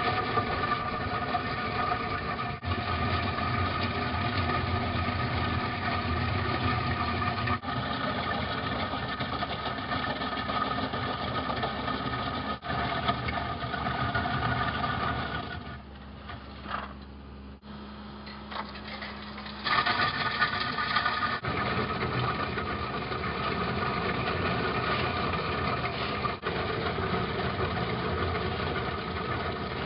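Hydraulic drum cutter on a wheeled excavator milling asphalt: a steady mechanical whine over the excavator's diesel engine and hydraulics. It drops quieter for a few seconds past the middle, then comes back at full level.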